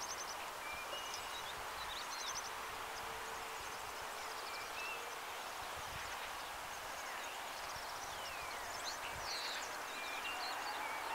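Boeing 737 MAX 8 taxiing in the distance, its CFM LEAP-1B turbofans giving a steady, even hiss at taxi power. Small birds chirp and trill over it throughout, and a faint tone starts rising in pitch near the end.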